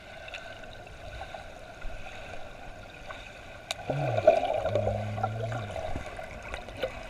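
Swimming-pool water heard through a submerged camera: a muffled, steady watery hiss that grows louder with splashing and bubbling a little under four seconds in, as a baby is moved through the water.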